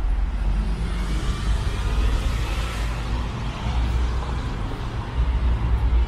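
Road traffic noise: a steady low rumble, with a vehicle passing by and swelling then fading about two seconds in.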